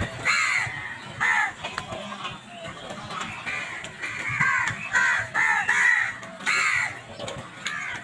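A flock of house crows cawing: many short, harsh caws, some overlapping, coming thickest from about four to six seconds in.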